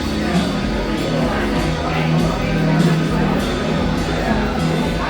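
Music playing over a PA, with a steady held low note and people talking.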